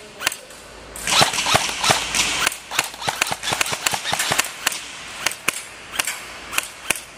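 Airsoft guns firing: an irregular scatter of sharp snapping shots, with a quick run of them from about one to two and a half seconds in, then single shots every few tenths of a second.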